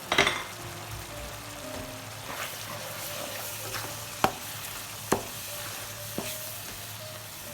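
Masala of ginger, garlic, green chilli and spice powders sizzling in hot oil in a pan while it is stirred, with a few sharp clinks of the spoon against the pan.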